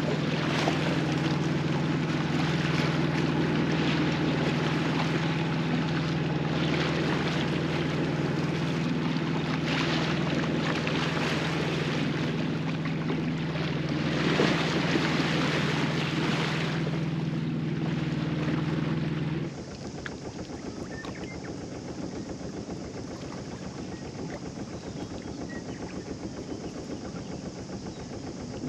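A sailboat's inboard engine running steadily while motoring under way, with wind and water noise over it. It stops suddenly about two-thirds of the way in, leaving a quieter steady hiss.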